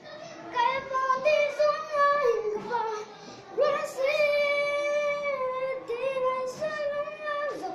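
A young boy singing solo, with no accompaniment heard, sliding between notes and holding one long note for about two seconds midway through.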